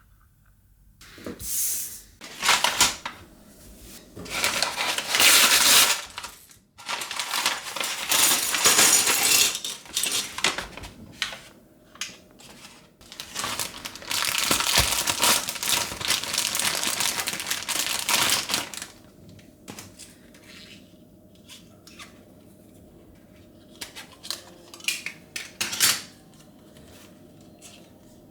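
Loose plastic LEGO pieces clattering and rattling as they are handled and sifted through, in several long stretches, then a few single clicks of pieces near the end.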